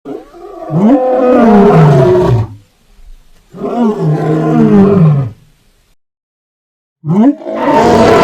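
Godzilla-style monster roar sound effects: three long roars, each sliding down in pitch, with short silences between them; the third begins near the end.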